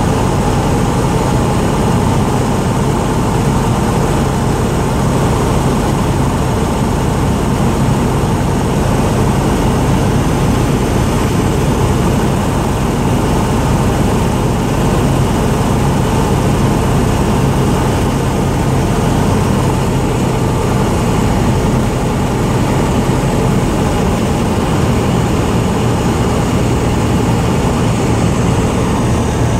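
Single-engine light aircraft's propeller engine droning steadily with wind noise, heard from inside the cockpit on final approach to landing.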